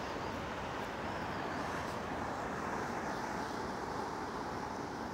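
Steady hum of road traffic from a nearby multi-lane road, an even wash of passing-car noise.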